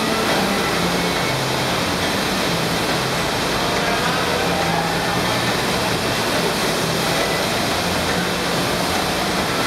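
Sheet of water from an indoor standing-wave surf machine rushing steadily up its padded slope, a constant loud noise with no let-up.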